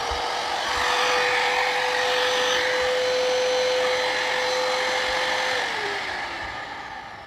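Ralli Wolf 600W trim router's motor running free at full speed with an even high whine, then switched off about five and a half seconds in and winding down with a falling pitch. It runs smoothly, without noise or vibration.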